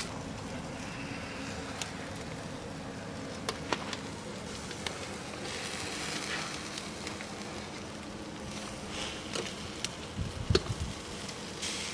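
Chicken and pork sizzling and crackling over charcoal on a small round grill, with a few sharp clicks of metal tongs against the grate, several of them close together near the end.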